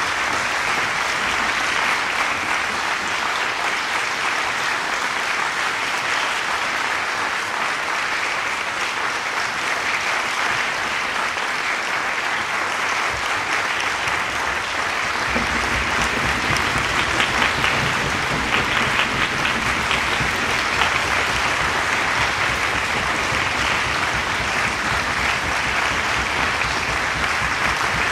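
Audience applauding steadily at the end of a cello-and-orchestra performance, joined by the orchestra players clapping. About halfway through, a low rumble thickens the applause.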